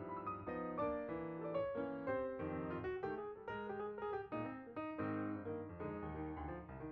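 Background piano music, a steady run of notes over chords.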